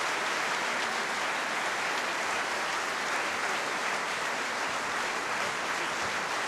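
Audience applauding steadily, the dense even clatter of many hands clapping.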